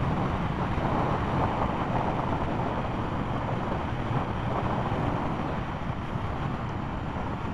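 Motorcycle cruising at a steady speed: an even rush of wind over the microphone mixed with engine and road noise.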